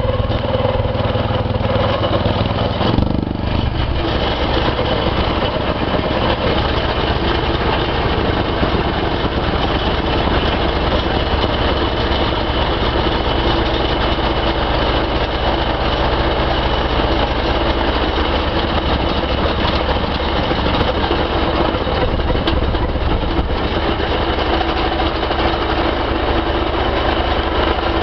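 Kent KHP65 hydraulic plate compactor attachment vibrating against the ground, with its carrier machine's engine running steadily. The sound changes about three seconds in, then settles into a steady rapid pulsing.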